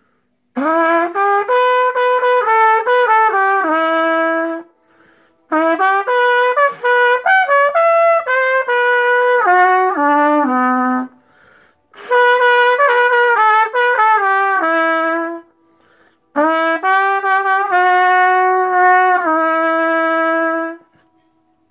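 Unaccompanied trumpet playing four short melodic phrases of separate notes, each ending on a held note, with brief pauses between them.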